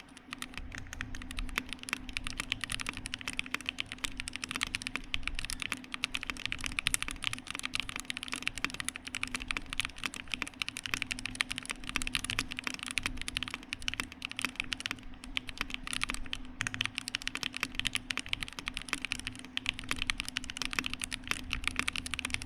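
Continuous fast typing on a Revo-Happy 60 HHKB-layout mechanical keyboard with stock Haimu Cockatiel switches: a rapid, unbroken stream of keystroke clacks. The board has a carbon-fibre plate, Poron gasket mount, no foam and Gateron blank keycaps.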